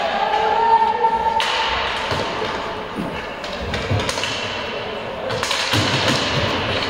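Sounds of play in an echoing sports hall: a drawn-out shout for about the first second, then a ball and players' feet thudding and knocking on the court amid voices.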